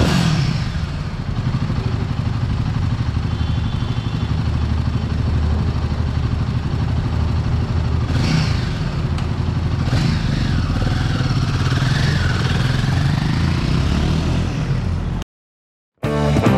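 Royal Enfield Himalayan 450's single-cylinder engine idling steadily, with a slight rise and fall in pitch about two-thirds of the way through. The sound cuts off shortly before the end.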